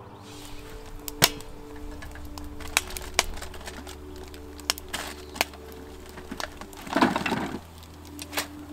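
A series of sharp cracks and knocks, the loudest about a second in, with a short rustling burst near the end, over soft background music with held chords.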